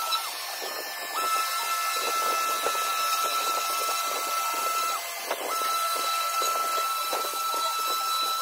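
Random orbital sander running against wooden table parts with a steady whine and hiss. It cuts out twice, shortly after the start and again about two-thirds of the way through, and starts up again each time, with scuffs and knocks as the pad is moved across the wood.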